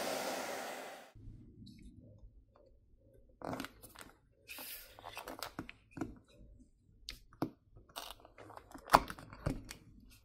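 Hair dryer blowing, cutting off about a second in. Then scattered clicks and short scrapes of a pry tool working a Samsung Galaxy S25 Ultra's glass back plate loose from its heat-softened adhesive, with the sharpest click near the end.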